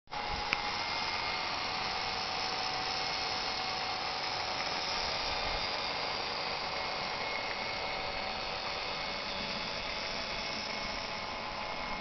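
Model boat's small steam turbine running steadily: an even high-pitched whine with a hiss, holding the same pitch throughout. A brief click about half a second in.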